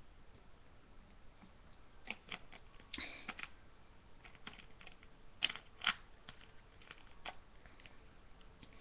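Plastic soda bottle being handled and its cap twisted, giving a scatter of short faint clicks and crackles.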